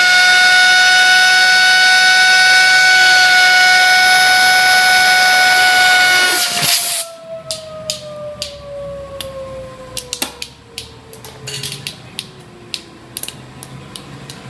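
A golf ball spun by a compressed-air blow gun inside a towel, giving a loud, steady high-pitched whistling whine over a hiss of air. About six and a half seconds in, the air stops with a short burst, and the whine carries on more quietly, falling steadily in pitch as the freely spinning ball slows down, with scattered clicks.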